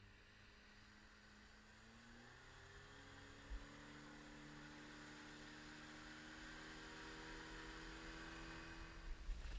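Faint hum of a boat motor, several tones together slowly rising in pitch and growing a little louder.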